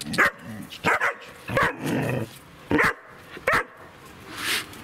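German Shepherd puppy, four months old, barking: about five barks, each less than a second after the last.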